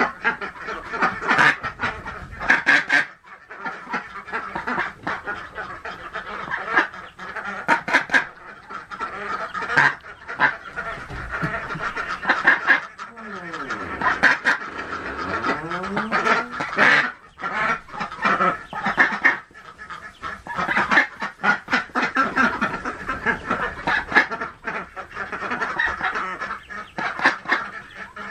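Golden 300 mother duck calling over and over with harsh, honking quacks: her defensive, protective calls at someone close to her newly hatched ducklings. A run of short calls, with a few longer drawn-out calls about halfway through.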